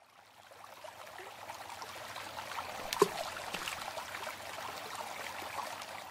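Water trickling in a steady stream, full of small drips and splashes. It fades in over the first second or so, with one sharper, louder splash about three seconds in.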